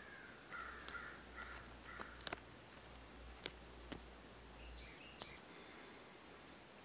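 Quiet with a few faint sharp clicks scattered through the middle and some faint indistinct calls or squeaks.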